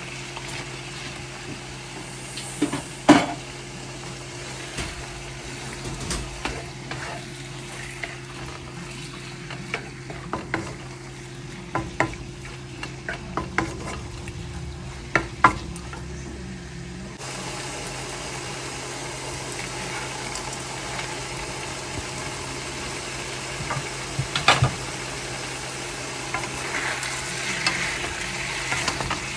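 Food sizzling in a frying pan while it is stirred, with scattered sharp clicks of a utensil striking the pan over a steady hum.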